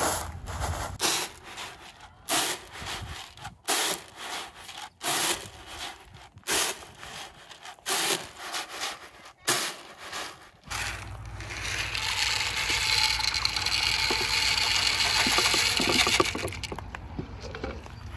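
Irregular knocks and scrapes, then dried shelled corn kernels poured from a plastic tub into a steel pot of water for lyeing: a dense rushing patter lasting about five seconds that tails off near the end.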